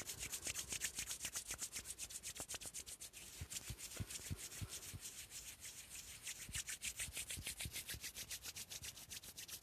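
Hands rubbing together rapidly and steadily, an even swishing at about seven strokes a second.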